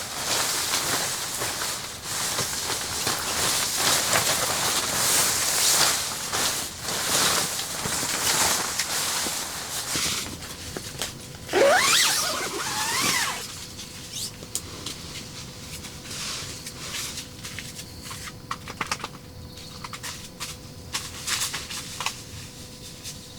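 Rustling, crackling and scraping noises, loud for the first half, with a brief rising squeal about twelve seconds in; after that, quieter scattered clicks over a faint steady hum.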